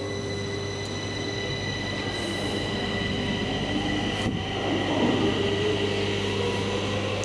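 Stockholm metro train running in the underground station: a steady high-pitched whine with a lower tone that rises, getting louder around the middle.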